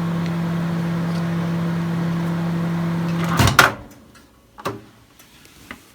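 Microwave oven running with a steady hum while heating a mug cake, then stopping with a sharp clunk about three and a half seconds in, with a faint click a second later.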